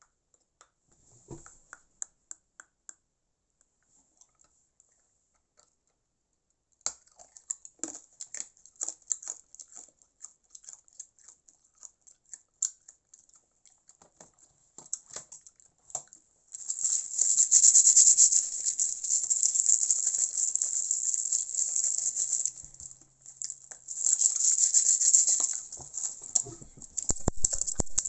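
Noises made on purpose by hand: scattered clicks and scratches, then a loud, hissy scraping that runs in two long stretches with a short break between them, and a fast, even run of clicks near the end.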